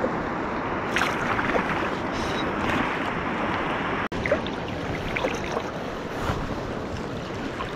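Steady rush of river water around a wading angler, with a few small splashes and some wind on the microphone; the sound cuts out for an instant about four seconds in.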